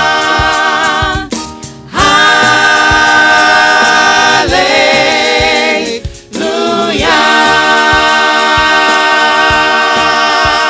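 Gospel vocal group singing long, held chords in close harmony. There are short breaks between phrases and a shift in pitch midway, and the final chord is sustained to the end.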